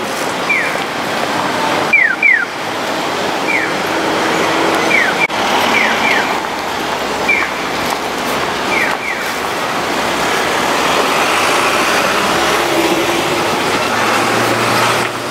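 Japanese pedestrian crossing signal chirping its electronic bird-call tone, short falling chirps alternating singly and in pairs about every second and a half, which signals a green walk light. It plays over steady street traffic and crowd noise and stops about nine seconds in.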